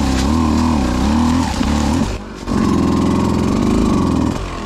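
Beta 200RR two-stroke dirt bike engine running under a blipping throttle, its pitch wavering up and down. It dips briefly about two seconds in, then runs steadier before dropping away right at the end.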